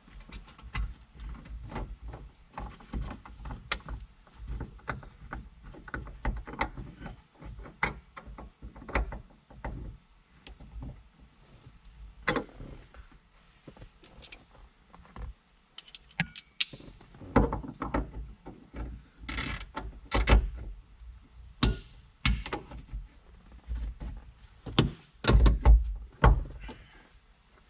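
Irregular clicks, rattles and knocks of hand work on a truck cab's roof light, as parts and tools are handled, with a few louder thumps in the second half.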